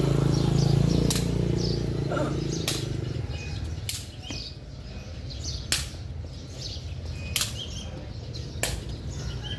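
Small birds chirping, with sharp clicks about every one and a half seconds. A low rumble fades out over the first few seconds.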